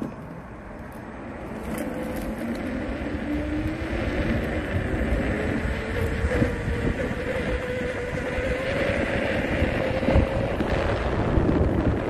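A vehicle running, with a low rumble and a motor whine that rises slowly in pitch as it gets louder about a second and a half in.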